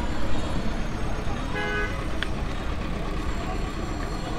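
Street traffic rumble with a short vehicle horn toot about one and a half seconds in, followed by a single sharp tick.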